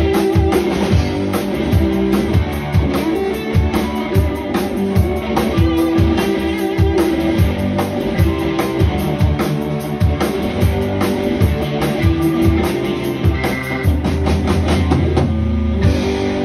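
Live instrumental rock band of electric guitar, keyboard and drum kit playing together, the drums keeping a steady beat. Near the end the drums stop and a low chord is held.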